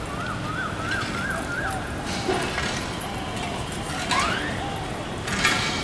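Animal calls: a quick run of about five repeated wavering high notes, then a single rising call about four seconds in, over steady outdoor background noise. A brief burst of noise comes near the end.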